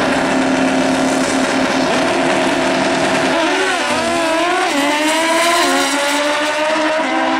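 Drag racing motorcycle engines held at steady high revs on the start line, then launching: the note dips and wavers about three and a half seconds in, then climbs steadily as the bikes accelerate down the strip.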